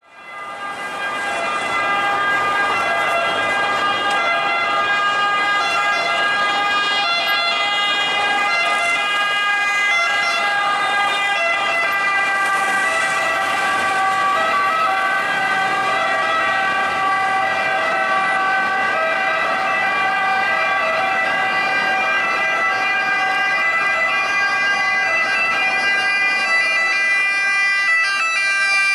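Emergency vehicle sirens sounding continuously: an Italian fire engine's pneumatic two-tone siren alternating between two pitches, fading in over the first two seconds, then an ambulance siren near the end. Light street traffic runs underneath.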